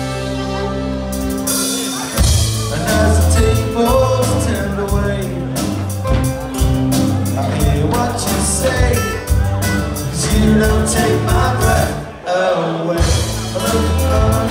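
Live folk-punk band playing loudly, with fiddle, acoustic and electric guitars, bass and drums. A held chord rings for about two seconds before the full band with drums kicks in; the band drops out briefly near the end and comes straight back in.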